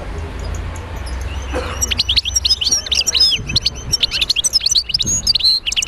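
Birds chirping: a dense run of short, quick high chirps starting about two seconds in, over a low steady hum.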